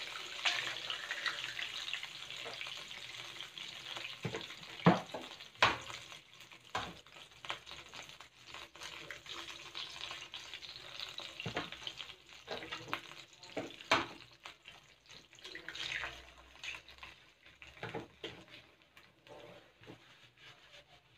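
Hot butter and oil sizzling in a nonstick wok as three eggs are cracked in, with a few sharp knocks of eggshells against the pan through it. The sizzle weakens toward the end.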